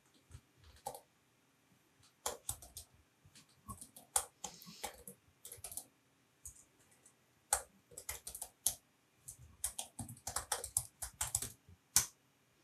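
Typing on a computer keyboard: irregular runs of keystrokes with short pauses between them, busiest in the last five seconds.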